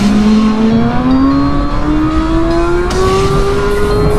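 2020 BMW S1000RR inline-four engine pulling hard at full throttle through one gear, its pitch rising steadily as the revs climb, with wind rush on the microphone underneath.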